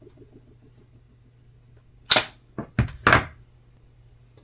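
Duct tape being ripped off the roll: four quick, sharp rips about two seconds in, over roughly a second, after a faint fading crackle of tape peeling at the start.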